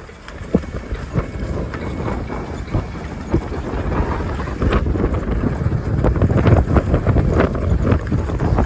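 Skis sliding and scraping over snow on a downhill run, with many small irregular scrapes and chatters, and wind rumbling on the microphone, the whole growing louder as speed builds.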